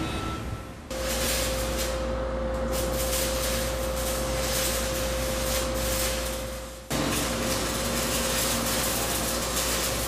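Steady industrial machine noise from steel repair work in a ship's hull: a constant tone and a deep hum over loud hiss. The sound breaks off and restarts abruptly about a second in and again near seven seconds.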